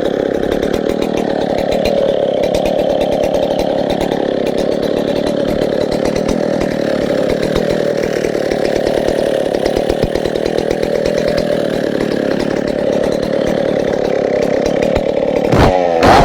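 Vintage 1965 Stihl 07S chainsaw's 75cc single-cylinder two-stroke engine running at a steady idle, then revved up in quick rises near the end.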